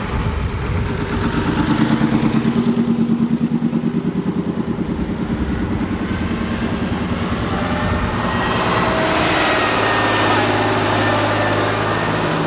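Engines of vintage fire engines running as the appliances drive slowly past at close range. The engine note throbs evenly at first, then grows louder and fuller from about eight seconds in as another appliance passes close by.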